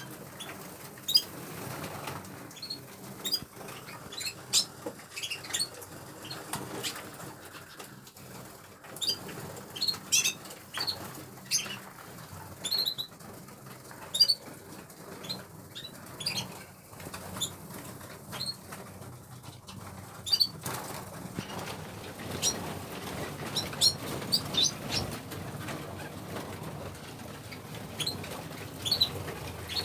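Caged canaries fluttering and flapping their wings in irregular flurries, with short high chirps scattered throughout.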